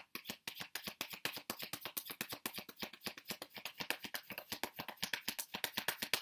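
A deck of tarot cards being shuffled by hand: a rapid, even patter of card edges flicking against each other, about ten clicks a second.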